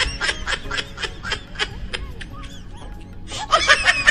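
Comedy laughter sound effect: a rapid run of high-pitched giggles that thins out after about two seconds and bursts in again about three seconds in.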